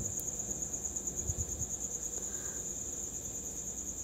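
A cricket trilling steadily: a high, rapidly pulsing tone that carries on without a break.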